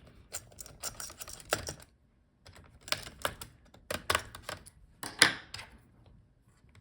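Irregular sharp clicks and taps of a screwdriver and metal parts as a laptop heatsink screw is removed and the heatsink worked loose, with a short pause about two seconds in.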